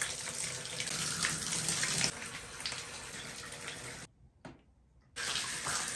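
Water running from a handheld shower head into a bathtub as a steady rush. It stops about four seconds in and starts again about a second later.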